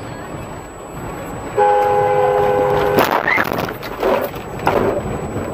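A car horn held for about a second and a half, cut off by a sudden bang, then loud rough noise and knocks as the car swerves off the road onto the verge.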